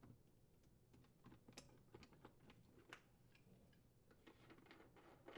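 Near silence with faint, scattered light clicks and ticks of channel-lock pliers gripping and unthreading a plastic dishwasher lower spray arm axle connector.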